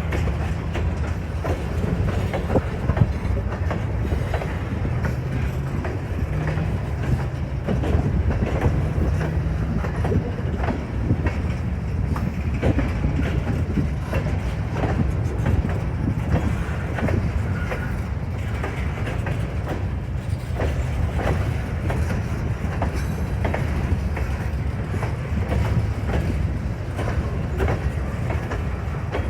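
Freight train of grain hopper cars rolling past, with a steady low rumble and wheels clicking over the rail joints many times.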